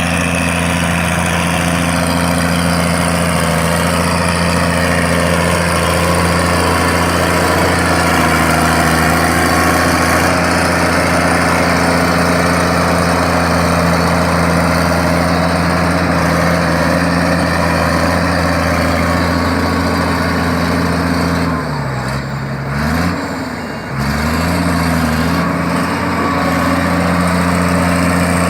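Heavy FD9 machine's diesel engine idling with a steady, deep rumble. About three-quarters of the way through, the revs drop and pick back up twice, then settle back to an even idle.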